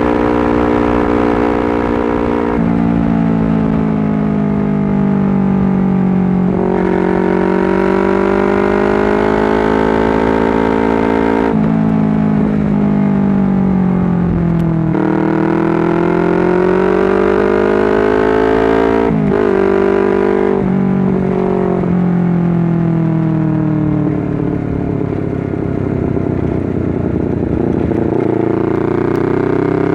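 Honda CBR250RR motorcycle engine and exhaust under way. The engine note climbs and falls with the throttle and jumps in pitch at gear changes every few seconds.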